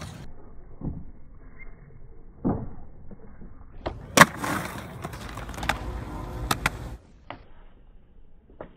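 Skateboard wheels rolling on concrete, with scattered sharp deck pops and clacks. The loudest impact comes about four seconds in.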